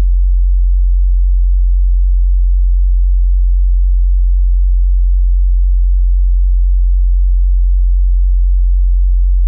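A steady, loud 45 Hz sine-wave test tone: a single deep bass note held without change.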